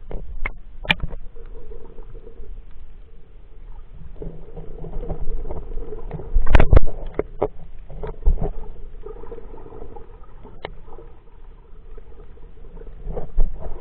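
Muffled underwater sound picked up by a camera in a waterproof housing: a low rumble with a faint steady hum, scattered clicks and knocks, and a loud rush of noise about six and a half seconds in.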